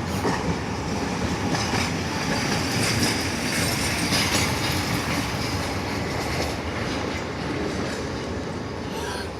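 A tram passing on its rails: a steady rumble of wheels and running gear, with a brighter high hiss from the wheels midway through.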